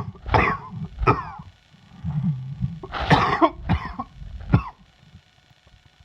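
A man coughing from a chest cold: a run of three coughs at the start, a breath, then a second run of about four coughs.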